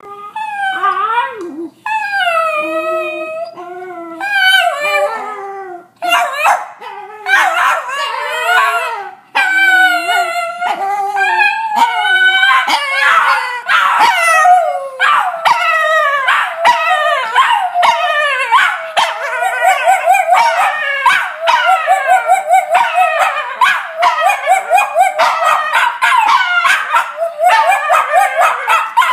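A Cairn terrier and a Jack Russell terrier howling, their homecoming greeting: long, wavering howls for the first dozen seconds, then quicker, broken yipping howls about two or three a second, the two voices sometimes overlapping.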